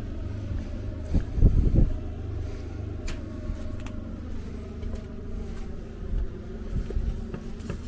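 A few heavy thumps about a second in, a door that is screwed shut being pushed and pulled without giving, over a steady low rumble.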